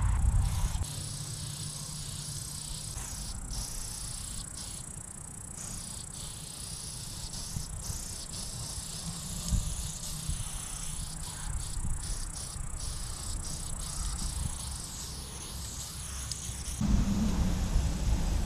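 Aerosol spray paint can hissing in short bursts as lines are sprayed, stopping and starting many times. A steady high insect trill runs behind it, and a low rumble grows louder near the end.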